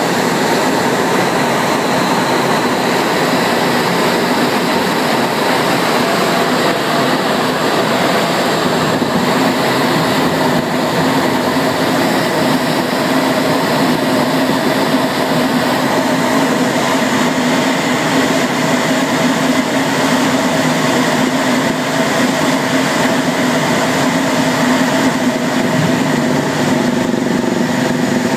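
Cockpit noise inside a Eurofighter Typhoon, with its two Eurojet EJ200 turbofans, as it lands: a loud, steady rush of air and engine hum with steady whining tones running through it.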